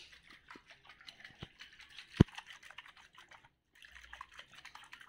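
Small clicks and light taps from a stainless steel vacuum flask being handled, with a sharper click about two seconds in.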